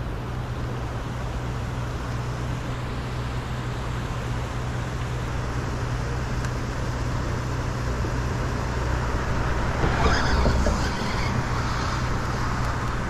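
Steady low rumble of road traffic, with a vehicle passing that swells to its loudest about ten seconds in.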